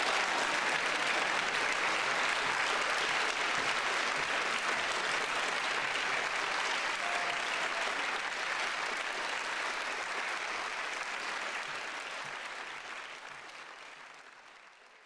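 Concert audience applauding steadily, the clapping fading away over the last few seconds.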